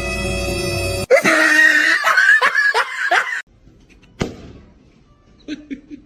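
A held musical tone that cuts off about a second in, followed by about two seconds of loud laughter in repeated bursts, then a single sharp click.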